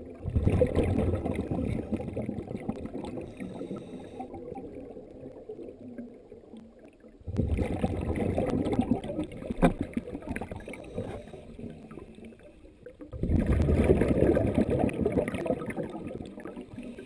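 Scuba diver's exhaled air bubbling out of the regulator, heard underwater through a GoPro dive housing: three bubbling bursts of a few seconds each, about six seconds apart, with quieter pauses between breaths.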